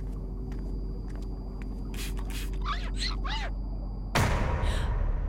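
Steady low rumble with a few short, high, gliding cries about three seconds in, then a sudden loud crash of noise about four seconds in that lasts about a second.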